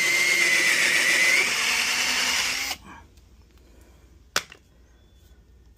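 Cordless drill spinning a countersink bit into a wooden board, a steady whine with a slight dip and rise in pitch, stopping suddenly under three seconds in. A single sharp click follows about a second and a half later.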